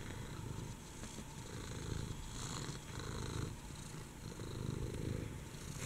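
Domestic cat purring steadily while being scratched under the chin, a low purr pulsing in a repeating rhythm.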